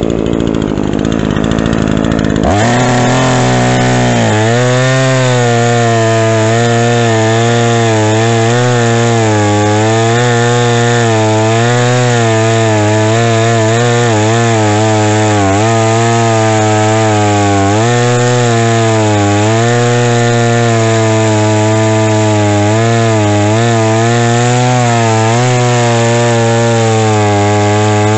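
Craftsman S205 two-stroke chainsaw engine on a test run with a newly fitted carburetor: it rises sharply in pitch about two and a half seconds in and then holds at high speed, its pitch wavering slightly.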